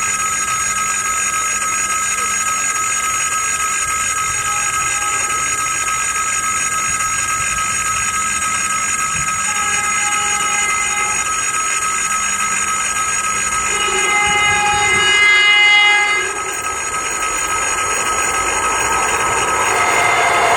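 ED4M electric multiple unit approaching at speed over a steady high whine, sounding its horn in one long blast about two-thirds of the way through. Track and wheel noise builds near the end as the train comes level.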